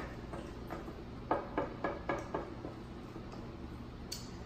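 Wooden spoon knocking against a glass mixing bowl while stirring chunks of seasoned meat: a quick run of about six knocks, roughly four a second, then one sharper click near the end.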